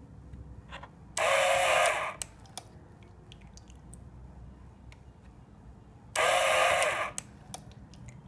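Small DC diaphragm water pump switching on twice, each time for just under a second and about five seconds apart, spraying water into a bottle cap as it fills it. A few faint clicks follow each run over a low steady hum.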